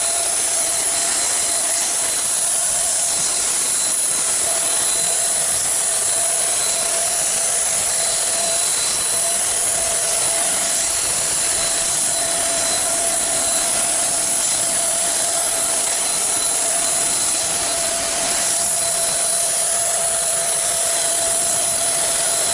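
Paint sprayer running steadily while spraying primer undercoat onto a metal garage door: a continuous hiss with a steady whining tone on top.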